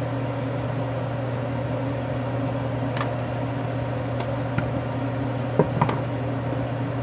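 A steady mechanical hum, like a small motor running, with a few light clicks and two small knocks a little before the end.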